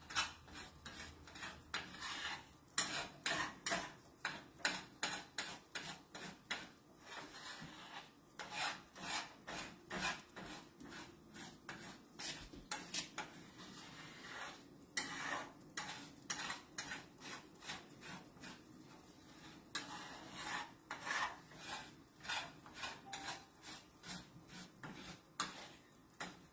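A cooking utensil stirring and scraping eggs around a skillet, a steady run of quick, irregular scrapes and light taps against the pan as the eggs are scrambled.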